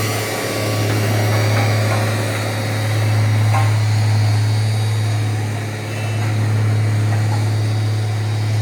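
An engine running steadily, a loud low drone that swells and eases slightly every few seconds.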